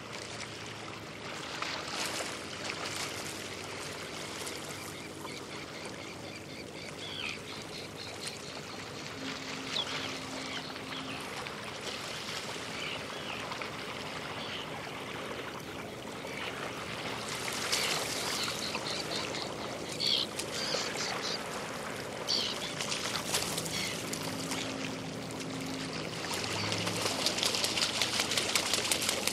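Light waves lapping and sloshing against rocking boats, with short high squeaks now and then. The lapping grows louder and choppier near the end.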